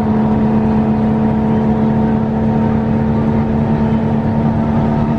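Front-engined intercity coach cruising, heard from inside the passenger cabin: a loud, steady engine drone with a constant hum, over a rumble of road noise.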